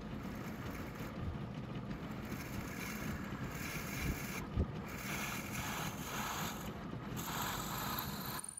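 Drill press running, its twist bit boring into a small hardwood block, with the cutting noise swelling several times as the bit feeds in. A single knock comes about halfway, and the sound cuts off suddenly near the end.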